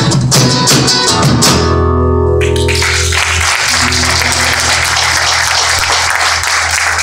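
Acoustic guitar strummed over a bombo legüero drum beating the rhythm, ending on a final chord that rings for about a second. Audience applause then takes over about two and a half seconds in.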